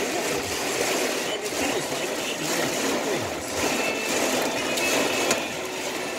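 Heavy rain pelting the roof and windows of a car, heard from inside the cabin: a dense, steady patter of countless small hits.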